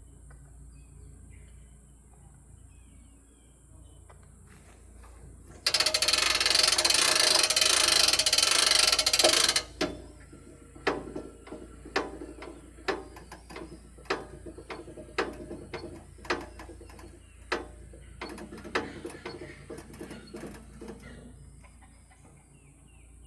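A lubricant spray hissing on the sawmill's parts for about four seconds. Then a run of sharp metallic clicks, roughly one a second for about ten seconds, as the stiff, long-unused mechanism is worked to loosen it.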